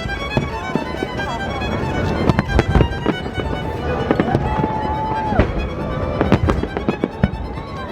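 Fireworks going off in quick succession, many sharp bangs and crackles, mixed with violin music.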